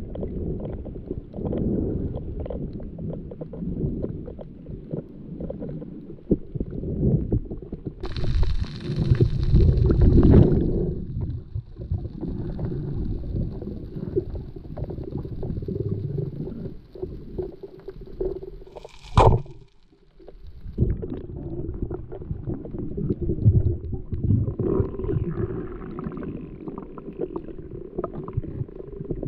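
Muffled underwater rumble of water moving over the camera, with a louder rushing surge about eight seconds in and one sharp click a little past the middle.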